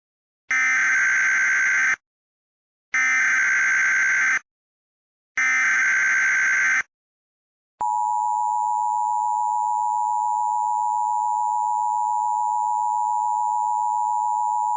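Emergency Alert System activation tones: three bursts of the SAME header's data screech, each about a second and a half long with short gaps between them. About eight seconds in, the steady two-tone EAS attention signal starts and holds.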